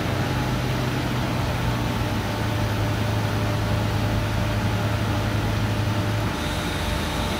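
Steady low hum and rushing noise of shop machinery running; the hum shifts about six seconds in, and a faint high whine joins it.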